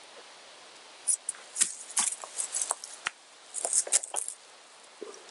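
Olight H2R Nova flashlight fumbled and dropped, clattering in a quick run of sharp clicks and knocks that starts about a second in and dies away near four seconds.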